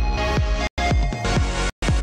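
Electronic intro music with heavy bass hits that sweep downward in pitch, several a second. The music cuts out abruptly for a split second twice, stutter-style.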